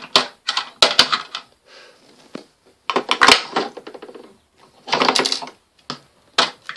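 Plastic toy horse figures clicking and clattering against each other and against the toy horse truck as they are handled and pushed in, in several quick runs of sharp clicks.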